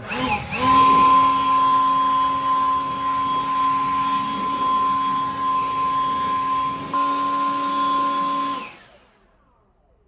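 A small electric power tool runs steadily with a high whine while cracked plastic fuel tank surfaces are cleaned before epoxy. It cuts out briefly at the start, shifts slightly about seven seconds in, and stops about nine seconds in.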